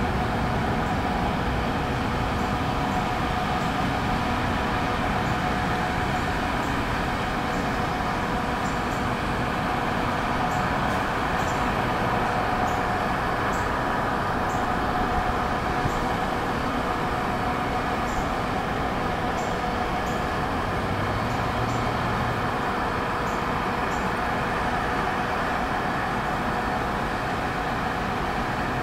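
MBTA commuter train rolling slowly into a station, its diesel locomotive giving a steady drone with a few faint, scattered ticks.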